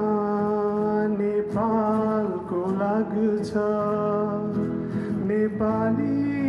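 Live acoustic music: two acoustic guitars strumming and picking chords under a sliding melody line.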